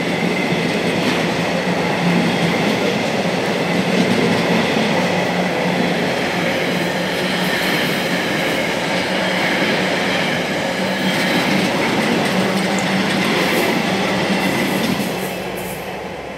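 Empty intermodal container flat wagons of a freight train rolling past, a steady loud rumble of wheels on rail with a low hum underneath. The sound fades near the end as the last wagon goes by.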